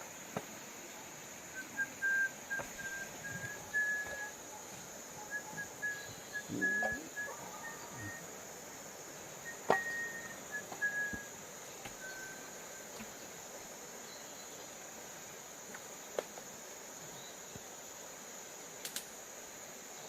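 Steady high-pitched drone of insects, crickets or similar. It is joined in the first half by a string of short, high chirps and a few scattered clicks and knocks.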